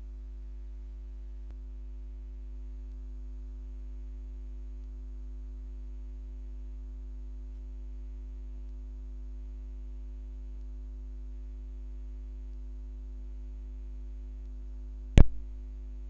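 Steady low electrical mains hum with faint higher overtones, broken about a second before the end by one sharp click.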